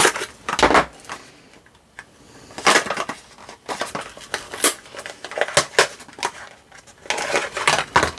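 Small printed cardboard box being cut open and handled: scraping, crinkling and rubbing of card in several short bursts, with the inner tray sliding out near the end.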